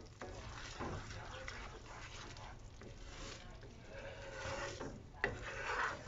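A wooden spoon stirring and scraping thick cream gravy around a nonstick skillet, with one sharp knock a little past five seconds in.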